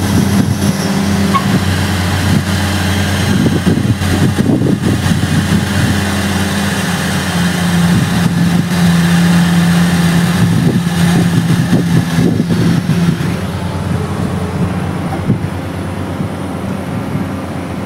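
Kato 20-ton mobile crane's diesel engine running at raised speed while the crane hoists a load: a steady hum that shifts in pitch about seven seconds in and grows quieter over the last few seconds.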